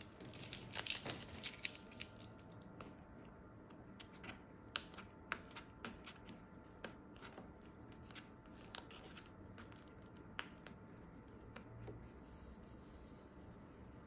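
Masking tape being peeled slowly off paper, crackling as the adhesive lets go: a quick run of crackles about a second in, then scattered sharp ticks as the strip lifts.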